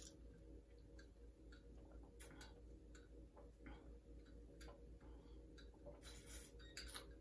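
Faint sipping of iced cold water through a straw, with scattered small clicks and a brief louder sip about six seconds in.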